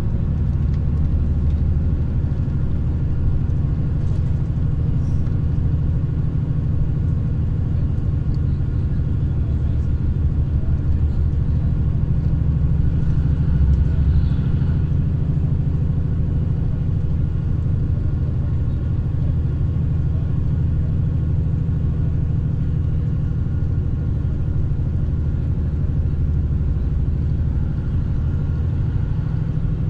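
Steady low rumble of a moving vehicle's engine and road noise while driving. It swells briefly about halfway through as a truck passes close alongside.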